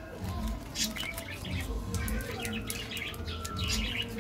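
KitKat wrapper and its inner foil crinkling and tearing as the bar is unwrapped by hand, in short irregular rustles. Birds chirp in the background.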